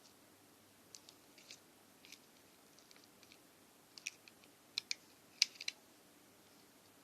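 Light, irregular clicks and ticks of small objects being handled, with a denser, sharper cluster about four to five and a half seconds in.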